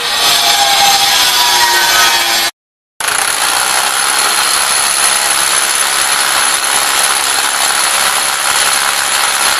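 A harsh grinding noise that cuts off abruptly about two and a half seconds in. After a short gap, a DeWalt rotary hammer drills into the concrete wall of a lift shaft with a steady loud noise and a thin high whine.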